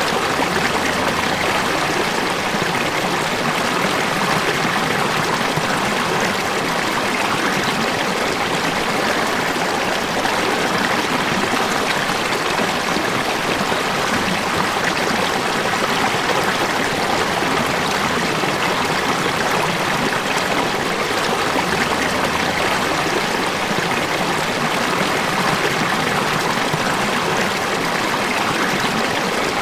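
Falling water running in a steady, even rush that does not change.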